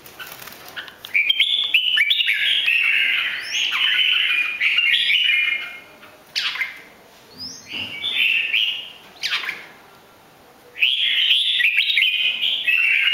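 Red-whiskered bulbul singing: bursts of quick warbling phrases, broken by two short notes that slide steeply downward, and a longer run of song that starts near the end.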